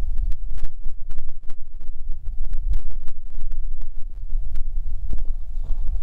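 Heavy low rumble of wind buffeting the camera microphone, with many small knocks from the handheld camera being moved.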